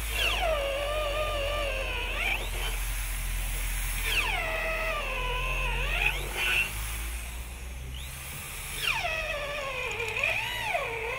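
Hand-held power drill running an Irwin Blue Groove wood bit into a wooden beam, three times in a row. Each time the motor's whine drops in pitch as the bit loads up in the wood, then climbs back as it frees up.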